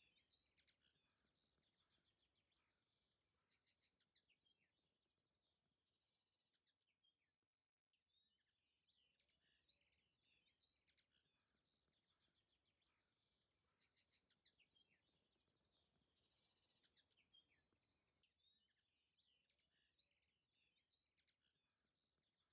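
Very faint songbirds chirping and trilling, with a brief dropout about eight seconds in.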